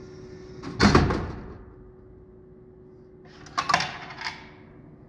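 Vending machine dropping a plastic bottle of Gatorade: a loud thump about a second in as it lands in the delivery bin, then a short clatter of clicks and knocks about three and a half seconds in, over a steady hum.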